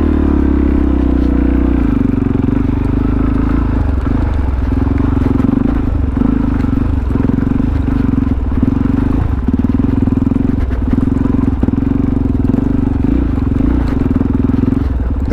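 Supermoto motorcycle engine running at a steady, low speed while ridden over rocky ground, its note settling a little lower about two seconds in.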